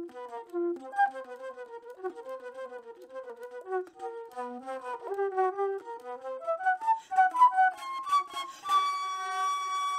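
Flute music: a quick run of short notes, rising higher toward the end, then one long held high note near the end.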